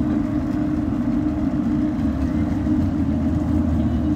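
Rescue boat's outboard motor running steadily in gear, a constant low hum.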